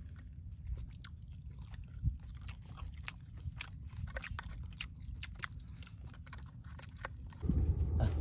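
Close-miked chewing and biting into grilled chicken: a steady stream of short, crunchy, smacking clicks over a low rumble. About a second before the end, a louder steady rumble takes over.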